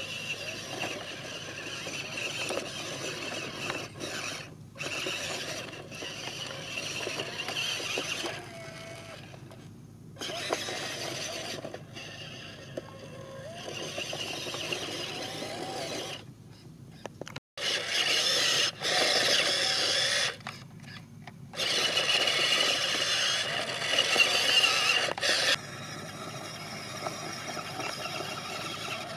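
Electric motors and gearboxes of a radio-controlled construction model whining in stretches that start and stop sharply as they are switched on and off. The loudest stretches come in the second half.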